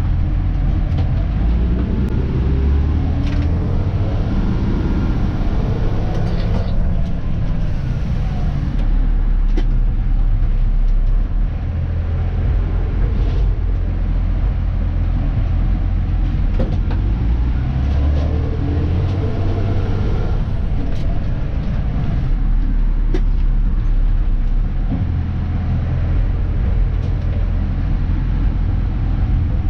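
Dennis Elite 2 garbage truck's diesel engine running under way, its pitch rising twice as the truck accelerates. A short hiss of air comes about seven seconds in.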